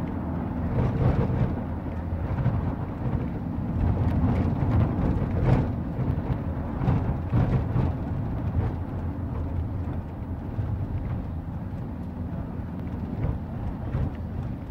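Steady low rumble of a vehicle on the move, with wind buffeting the microphone in uneven gusts.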